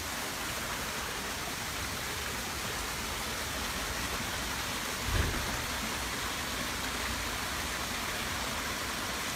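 Small garden waterfall splashing steadily over stacked stones into a pool. A brief low thump about five seconds in.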